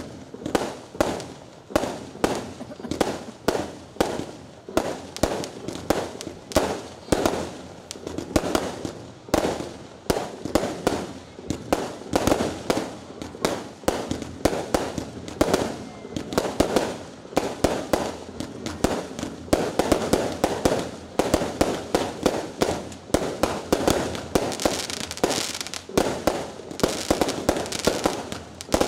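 Aerial fireworks going off in a continuous barrage, one launch-and-burst bang after another at roughly two a second. The shots come thicker near the end, with a crackling hiss between them.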